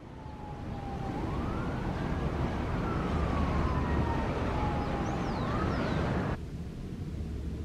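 A distant siren wailing, its tone rising and falling slowly about twice, over a steady background rush that drops off suddenly near the end.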